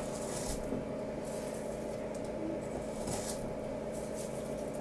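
Salt sprinkled by hand into a steel mixing bowl of wet mixture: a few brief soft hisses, over a steady faint hum.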